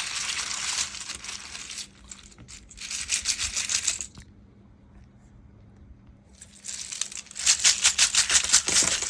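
Loose plastic keycaps from a mechanical keyboard clattering and rattling together as they are handled in bursts, with a quiet pause in the middle. The loudest part is a rapid run of clicks near the end.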